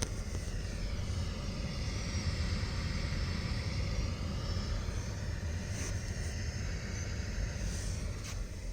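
Steady hiss from car audio speakers, the noise fault of a Dasaita aftermarket head unit, over a low rumble from the car. Two faint ticks come late on.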